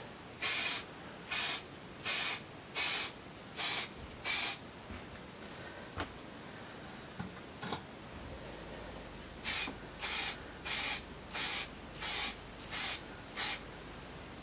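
Aerosol can of black spray paint spraying a miniature in short hissing bursts, about one a second. There is a pause of a few seconds with a few faint taps, then another run of short bursts.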